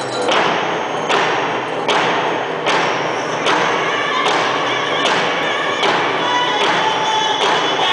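Several hand drums struck together in a steady, slow unison beat, a little over one stroke a second, with men's voices joining in singing about halfway through: a powwow hand-drum song.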